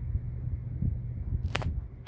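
Hampton Bay Antigua ceiling fan running at speed: a steady low hum and whoosh, with the blades' airflow buffeting the microphone unevenly. A brief sharp click comes about one and a half seconds in.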